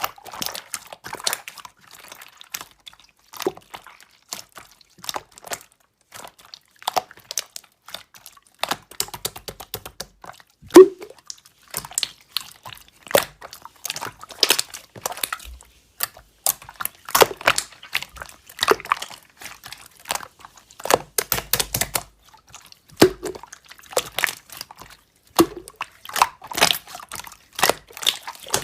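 Slime being squeezed and poked by hand: irregular sticky clicks, crackles and wet pops, with one louder pop about eleven seconds in.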